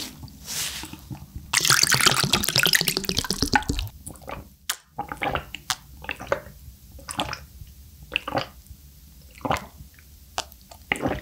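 A tissue rustles loudly against the mouth for about two seconds, then a person drinks an iced drink from a glass in a series of separate gulps and swallows, roughly one a second, picked up by a close microphone.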